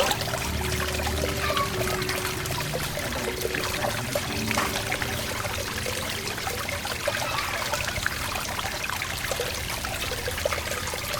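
Water from an old-jar fountain pouring and trickling steadily into a cement aquarium pool.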